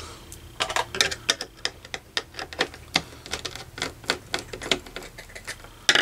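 Quick, irregular small clicks and ticks, several a second, of a hand screwdriver working the screws out of the plastic retention brackets around a motherboard's CPU socket.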